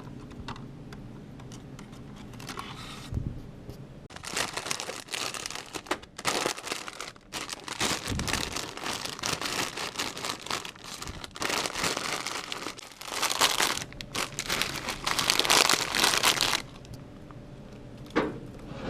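Plastic packaging crinkling and rustling as it is handled, in irregular bursts.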